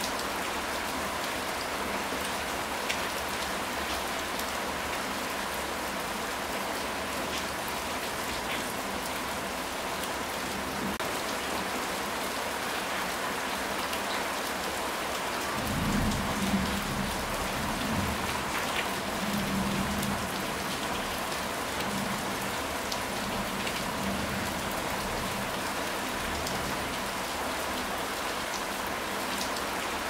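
Steady rain falling on a tiled roof. About halfway through, a low rumble of thunder swells in several waves for some five seconds and then fades back under the rain.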